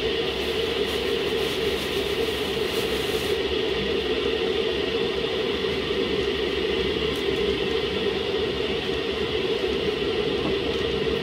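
Pot boiling under a glass lid on a lit gas burner: a steady rushing, bubbling noise.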